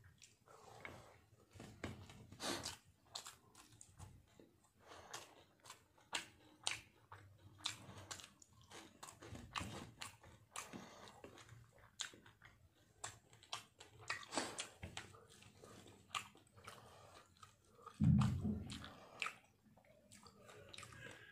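Close-up eating sounds of a person chewing rice and fried fish eaten by hand: wet mouth smacks, soft bites and crunches, and many small clicks. About three-quarters of the way through there is one loud, dull thump.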